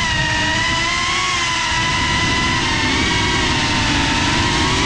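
FPV quadcopter's brushless motors and propellers whining, recorded by the onboard camera, the pitch wavering up and down with the throttle over a low rush of prop wash and wind.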